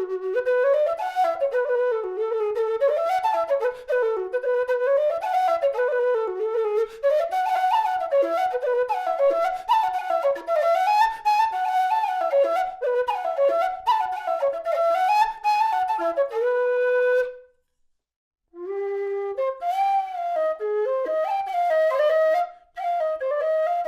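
A Nightingale low whistle, aluminium body with a plastic head, playing a fast tune of quick, ornamented notes. The tune ends on a held note about 17 seconds in, and after a second of silence a new phrase begins.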